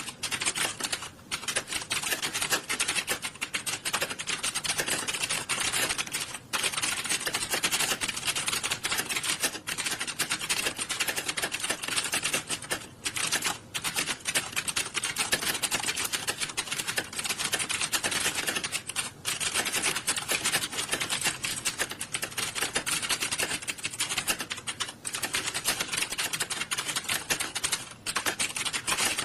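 Many computer keyboards being typed on at once, a dense continuous clatter of overlapping keystrokes with a few brief lulls.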